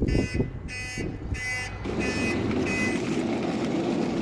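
An electronic beeper sounding about five short beeps roughly half a second apart, over a steady low rumble that sets in about two seconds in.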